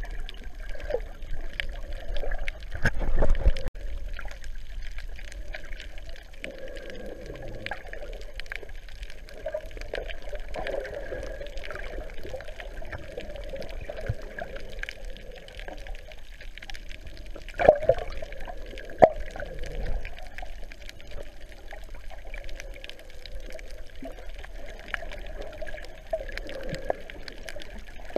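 Water sloshing and gurgling, heard muffled through a GoPro's waterproof housing held underwater, with a louder knock about three seconds in and two sharp knocks close together later on.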